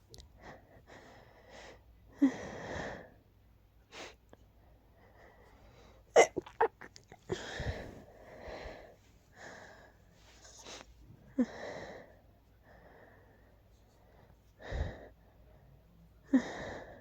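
A person sneezing a few times from a tickle in the nose, the sneezes spaced several seconds apart rather than coming in a rapid run. Audible breathy intakes come between them.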